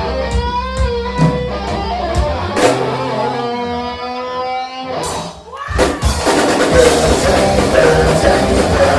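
Punk rock band playing live and loud. Electric guitar plays a line with light cymbal ticks at a steady pace, then the full band with drums crashes in about six seconds in.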